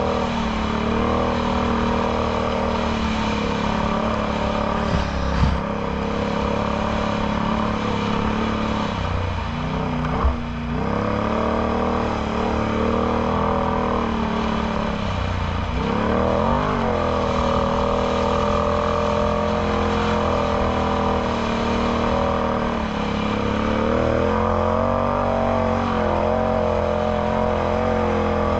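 Can-Am Outlander X MR 850 ATV's V-twin engine running through a Yoshimura slip-on exhaust while riding, its pitch rising and falling with the throttle. It drops off briefly about ten and sixteen seconds in, and there are two short knocks.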